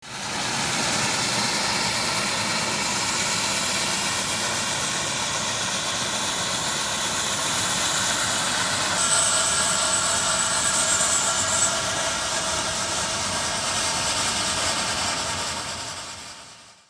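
Steam cog-railway locomotive running with a steady rushing noise; about halfway, faint pitched tones join in with a thin high whine lasting a few seconds. The sound fades out at the end.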